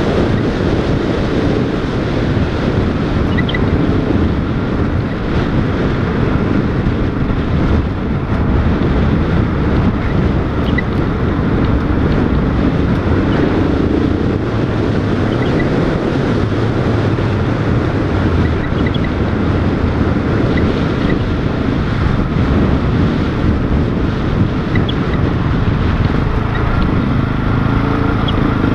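Wind rushing over the microphone of a camera riding on a motorcycle, with the motorcycle's engine running steadily underneath, on a rough gravel track. Occasional small ticks sound through the noise.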